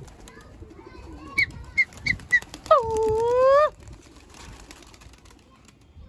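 Domestic pigeons calling on a rooftop loft: a few short high chirps, then one loud call about a second long that dips and rises in pitch.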